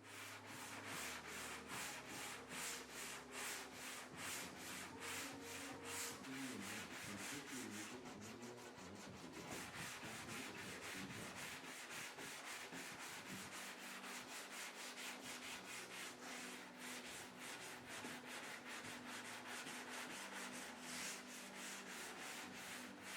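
Straight-line sander with 80-grit paper rasping over a guide-coated sheet-metal car door in long, light strokes, pulsing in a fast even rhythm. This is block-sanding filler and guide coat flat to knock down the high spots.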